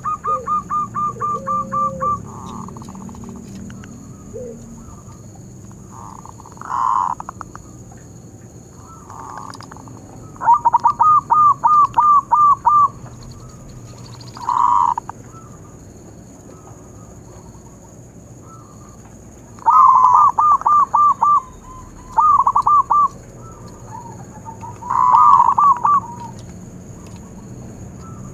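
Zebra dove (perkutut) cooing: phrases of rapid, clipped coos run off in quick even series, alternating with single longer coos, the phrases coming every few seconds.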